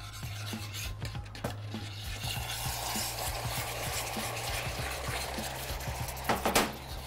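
Cream poured into hot caramel in a stainless steel saucepan, hissing and bubbling as it hits, while a whisk stirs and scrapes in the pan. A short, louder clatter comes near the end.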